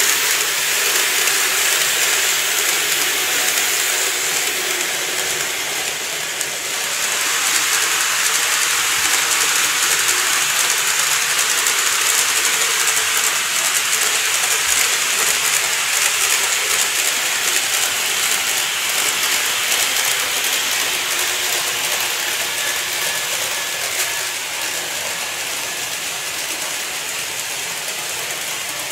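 N-gauge model electric trains running on layout track: a steady whirring of motor and gears mixed with a hiss of small wheels on the rails, easing briefly about six seconds in.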